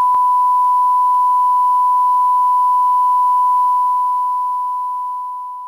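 A steady, loud, single-pitch sine tone like a test beep, with a faint click just after it starts, fading out over the last two seconds.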